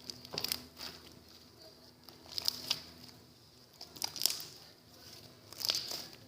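Stiff, overactivated slime being squeezed and pulled by hand, crackling and crinkling in four short bouts about a second and a half apart; the slime has had too much activator.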